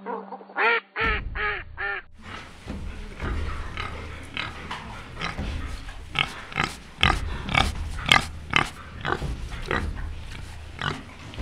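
Wild boar grunting and squealing: a quick run of four short calls, then a longer uneven series of grunts over a low rumble.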